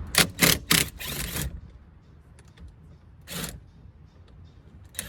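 Impact wrench on the steering wheel's 19 mm centre nut, fired in short bursts: four quick ones in the first second and a half, then two more single bursts later.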